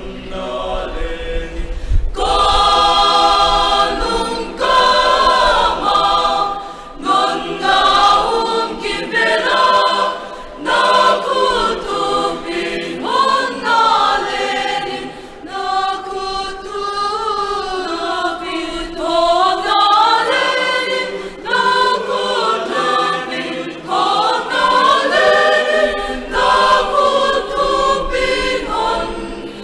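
Mixed choir of men and women singing, the full choir coming in strongly about two seconds in.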